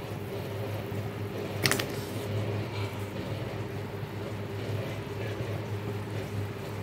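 Steady low mechanical hum with a light hiss in a kitchen where a curry is boiling on a gas stove. A little under two seconds in there is a single sharp metallic clink as raw mango pieces go into the aluminium pan.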